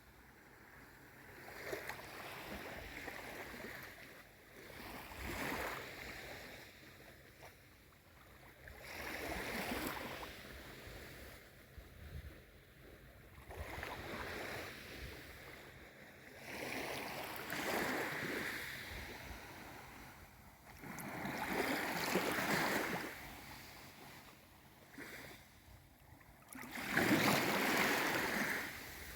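Small waves on a calm sea lapping and washing in, a soft swell of water every three to four seconds, the loudest one near the end.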